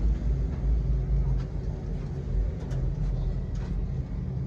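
Low, steady rumble of an idling engine, with a few faint clicks over it.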